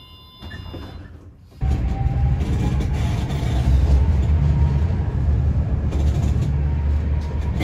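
Tram running, heard from inside the car. After a quieter first second and a half, a loud low rumble sets in suddenly, with a faint electric motor whine slowly rising in pitch as the tram picks up speed.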